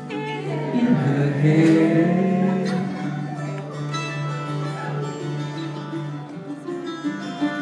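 Live acoustic string band playing an instrumental passage on mandolin and acoustic guitars. A voice rises briefly over it about a second in.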